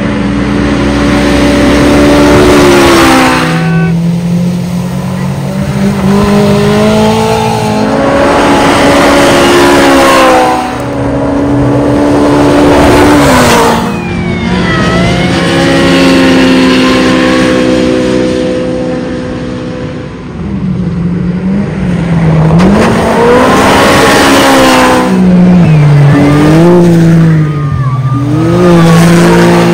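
Side-by-side (SSV) off-road race cars passing one after another, engines revving up and down through the gears as they accelerate. Each pass swells up loud and fades, about five times.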